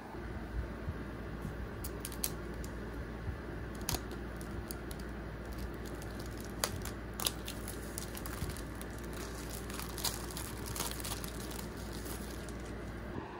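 Plastic shrink-wrap crinkling as an AirPods Pro box is handled, with a scatter of sharp taps and clicks, over a steady low hum.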